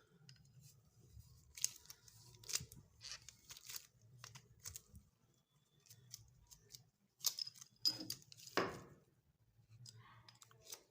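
Hands working a Zegana Sport 9mm pistol's parts: a string of sharp clicks and scrapes, with a longer, louder scrape about eight to nine seconds in.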